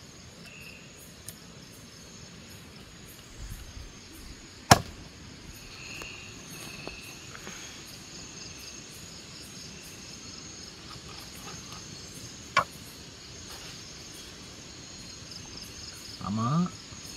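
Night insects, crickets, chirring steadily. Over them come sharp knocks of a machete on a wooden chopping board while fish are cleaned: a loud chop about four and a half seconds in and a second, ringing one past twelve seconds.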